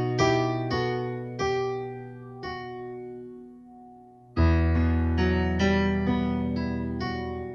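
Background piano music: slow notes and chords that ring out and fade, with a loud new chord and low bass note about halfway through.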